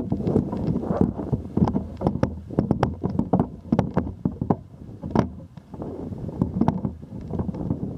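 Wind buffeting the microphone with a fluctuating rumble, broken by frequent sharp clicks and knocks from the camera pole being handled and moved.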